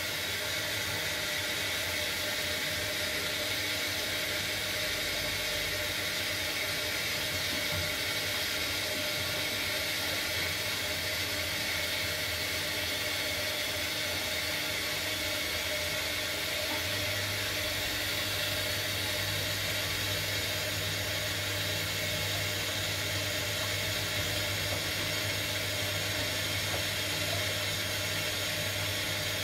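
Front-loading washing machine on its final rinse cycle: a steady whirring hiss from the machine and water in the drum, with a low hum that gets stronger a little over halfway through.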